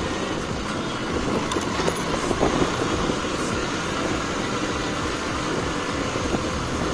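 Motor vehicle driving along a street: steady engine and road noise with no breaks.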